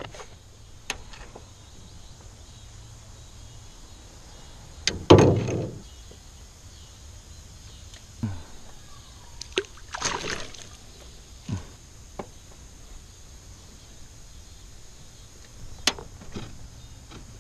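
Handling noises in an aluminum jon boat: scattered knocks and clicks, with a heavy thump about five seconds in and a rattling clatter around ten seconds in.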